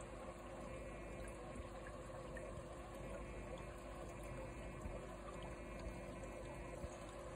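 Aquarium filter running: a steady wash of moving water over a constant low hum, with faint ticks here and there.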